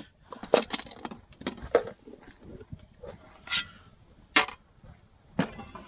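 A few sharp metallic clinks and knocks, irregularly spaced, from a metal tent stove and its cookware being handled.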